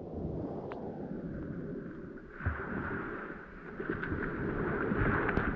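Seawater sloshing and lapping around a person standing in the shallows, with wind buffeting the microphone; a steady hiss builds up in the second half.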